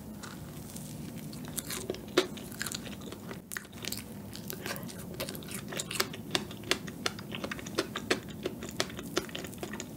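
Chewing a big mouthful of chocolate cream cake topped with fresh strawberries, close to the microphone: many small, sharp, irregular mouth clicks.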